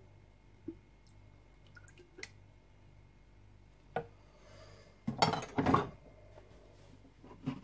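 Light clinks and knocks of a silicone spatula and glass jar against a plastic mixing bowl as warmed tallow is scraped in and stirred, with a louder burst of clattering and scraping for about a second, about five seconds in.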